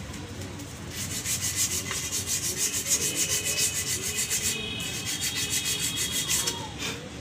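Sandpaper scraping in quick, even back-and-forth strokes over the lining of a Hero Honda Passion Plus rear drum-brake shoe, with a brief pause a little past halfway. The sanding cleans off the hardened, glazed lining and the brake dust that make the brake squeal when applied.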